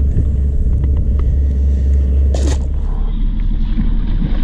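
Heavy low wind rumble buffeting the microphone, with a brief splash about halfway through as a released largemouth bass goes back into the water.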